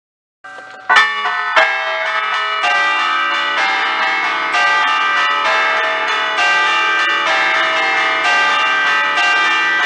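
Five Ambrosian church bells in D, cast by Giorgio Pruneri in 1875, chimed by hand in a festive allegrezza: the bells hang still while their clappers are pulled on cords, striking in a quick, dense pattern, heard close up in the bell chamber. The ringing starts about half a second in with two sharp strokes, then continues as a steady stream of overlapping strokes.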